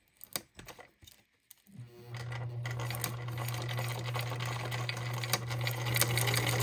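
A few small clicks, then about two seconds in an electric sewing machine starts and runs steadily, its motor humming under a fast stitching clatter as it sews a Velcro hook strap.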